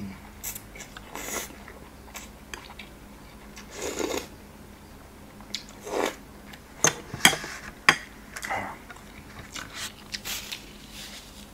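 A person eating Sarawak laksa noodles with spoon and fork: short slurps and chewing noises, coming on and off every second or two.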